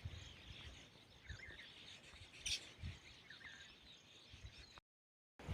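Faint outdoor background with a few short, soft bird chirps and some dull low knocks. The sound cuts out to total silence for about half a second near the end.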